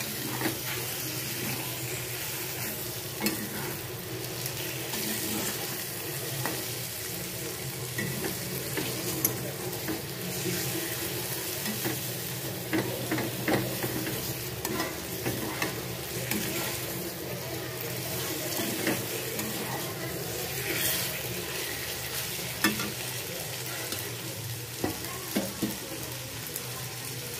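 Chicken pieces in masala sizzling and frying in a steel kadai, with a metal spatula stirring and scraping against the pan, clicking and knocking at irregular moments over the steady sizzle.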